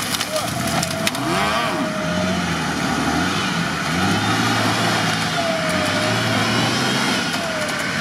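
Off-road 4x4 engines running in deep mud, with revs going up and down and a whine that dips and rises a few times.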